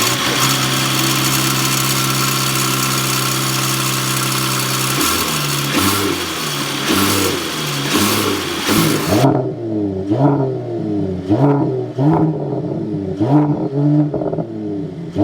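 Mercedes-AMG GT43's turbocharged four-cylinder engine running at a steady idle under a rushing hiss for about five seconds. It is then revved in quick blips, the pitch rising and falling, with a run of short sharp revs about once a second in the second half.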